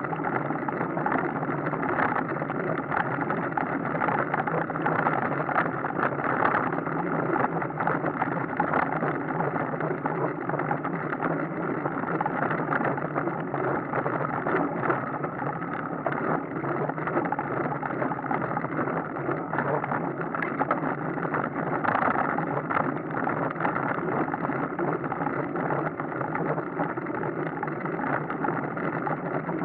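Steady rushing noise of a moving bicycle ride, wind and road noise on the camera microphone, holding an even level throughout.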